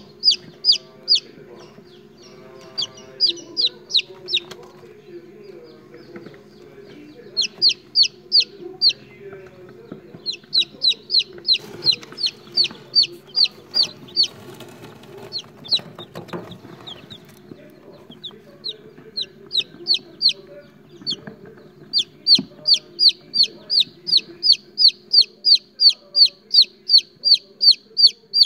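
Three-day-old chicks peeping: short, high calls, each falling in pitch, in bouts, then a steady run of about three peeps a second over the last several seconds.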